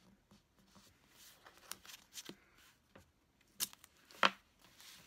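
Washi tape being unrolled and pressed onto a paper planner page, with paper rustling and scraping and two sharp taps about three and a half and four seconds in.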